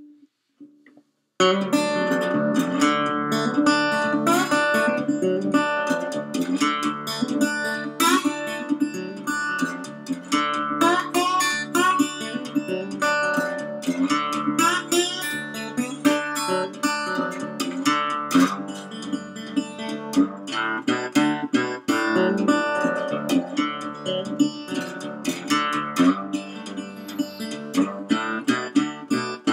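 Wood-bodied resonator guitar (Dobro style) played slide, a blues instrumental: notes glide up and down in pitch over picked strings. The playing starts about a second and a half in and then runs on without a break.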